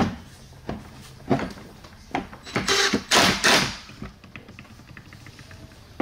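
A few knocks as an 8-inch subwoofer is handled into a wooden enclosure, then a cordless DeWalt driver runs screws in short bursts from about two and a half to three and a half seconds in, followed by light ticking.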